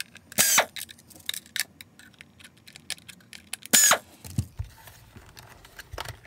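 Two short whirs of a cordless power screwdriver backing out screws from a plastic Dyson cyclone housing, about half a second in and again just before 4 s, with light plastic clicks and a soft knock as the parts are handled.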